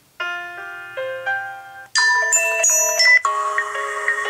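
Samsung Galaxy S4 ringtone previews playing: chime-like electronic melodies, one after another. A new ringtone cuts in about two seconds in and again about a second later, each replacing the last abruptly as it is selected from the list.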